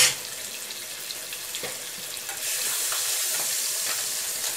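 Chopped onion frying in a saucepan, a steady sizzle that grows louder about two and a half seconds in as it is stirred with a spoon, after a spoon knock at the very start.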